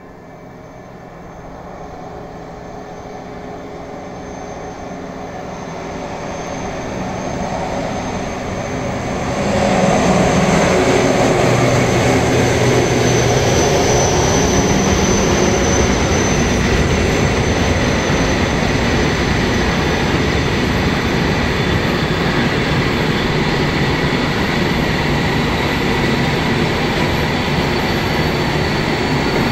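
A class 753.7 'brejlovec' diesel locomotive hauling a freight train up a grade, its Caterpillar diesel engine working under load and growing louder as it approaches and passes about nine or ten seconds in. After that comes the steady noise of loaded freight wagons rolling by, with some faint high wheel tones.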